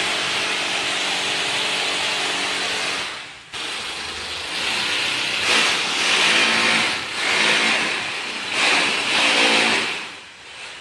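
Electric drill boring into a plastered wall to mount an air conditioner. It runs steadily for about three seconds, stops briefly, then runs again for about six seconds, its loudness swelling and easing as it is pushed in.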